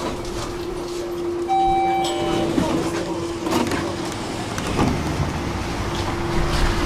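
Electric tram running, heard from inside the car: a steady hum with a held tone, a few knocks from the wheels on the rails, and a brief higher tone about one and a half seconds in.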